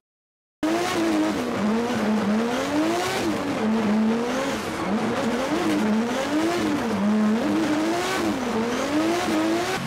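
2JZ straight-six engine of a GR86 drift car heard from inside the cabin, starting about half a second in, revving up and down over and over through a drift run, with tyre noise underneath.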